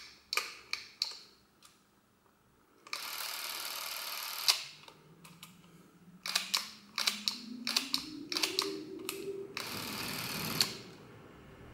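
Revue Cockpit S6L Super 8 cine camera being tried out. Its buttons and switches click, and its small electric motor runs in two steady whirring spells of about a second and a half each, with a faint tone rising in pitch between them.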